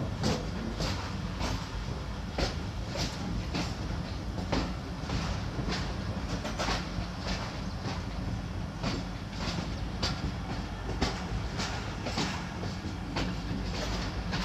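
Passenger train coaches rolling along the track, their wheels clacking over the rail joints about twice a second over a steady low rumble.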